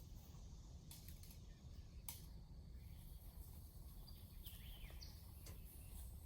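Near silence: faint outdoor background hum with a few soft clicks and a couple of faint bird chirps about four to five seconds in.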